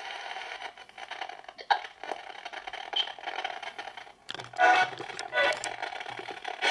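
Polterpod spirit box scanning through radio frequencies: choppy static and hiss, chopped up many times a second, with brief fragments of voices breaking through a little past halfway.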